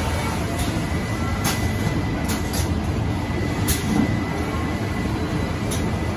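Roll container packer running on carton packing: a steady mechanical rumble with a faint steady whine, broken by sharp, irregular clacks about once a second.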